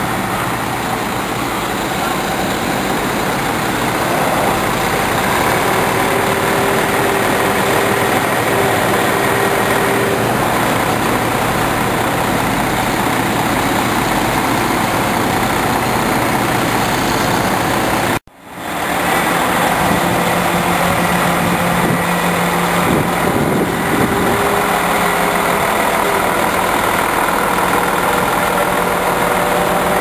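Heavy equipment engines running steadily, the crane truck's engine among them. The sound cuts out for a moment a little past halfway.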